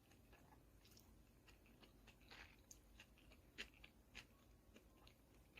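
Faint close-up chewing of barbecued duck with chives: soft, scattered mouth clicks and small crunches, a few a little louder around the middle.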